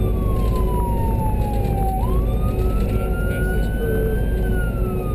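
Emergency vehicle siren in a slow wail: the pitch falls, then about two seconds in sweeps back up, rises steadily and starts to fall again near the end. Under it runs the steady low rumble of the moving vehicle's engine and road noise.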